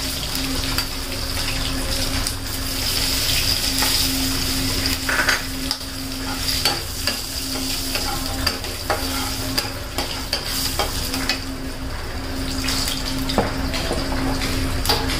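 Curry leaves, green chillies and cumin sizzling in hot oil in a non-stick kadai: the tempering for kadhi. A spatula stirs them, scraping and tapping against the pan now and then, over a steady hum.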